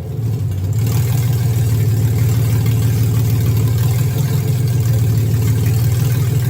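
Sandrail's engine running steadily at a fairly even speed, with a hiss across the high range joining about a second in.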